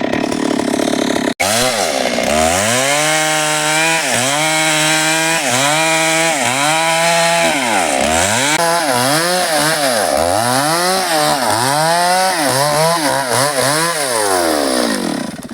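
Stihl MS 382 two-stroke chainsaw being revved repeatedly, its engine climbing from idle to high revs and dropping back about once a second, then winding down near the end. It opens with about a second of steady, noisier running that breaks off abruptly.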